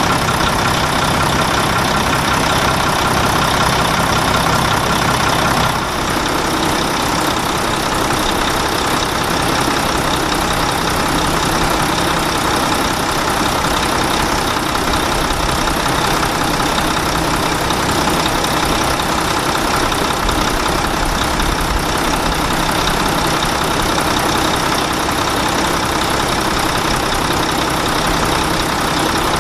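Truck engine running at a steady, even speed, with a brief dip in loudness about six seconds in.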